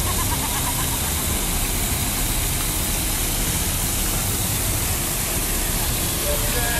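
Steady rushing and splashing of a row of fountain jets falling into their pool, with a voice heard briefly at the start and again near the end.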